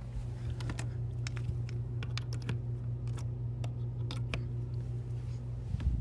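Upright vacuum cleaner running on carpet: a steady motor hum with scattered sharp clicks of grit and debris being sucked up, and a thump near the end.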